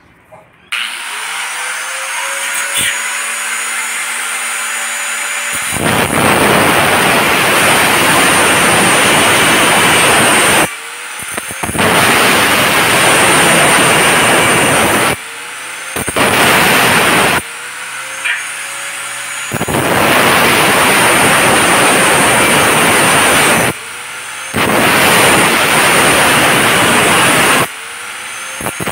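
Handheld angle grinder with a cut-off disc spinning up with a rising whine and running free, then cutting through 2x2 galvanized iron square tubing from about five seconds in. The cutting comes in several loud spells of a few seconds each, with short breaks where the disc runs free or winds back up.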